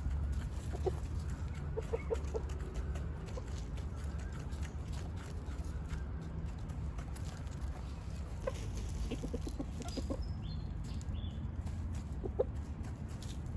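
Chickens clucking in short, low-pitched runs of a few clucks each, scattered through the stretch, over a steady low background rumble.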